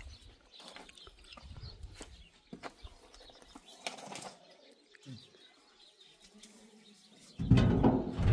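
Bird wings flapping in scattered short bursts, with a louder flurry near the end.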